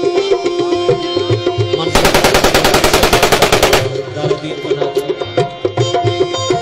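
A burst of automatic rifle fire, a rapid even string of shots lasting about two seconds, starting about two seconds in. It plays over live folk music with steady drumming.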